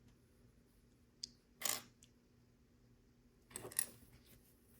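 Faint clicks and rattles of small plastic LEGO pieces being handled and sorted through: a small click about a second in, a louder rustling click just after, and a quick cluster of clicks and rattles near the end.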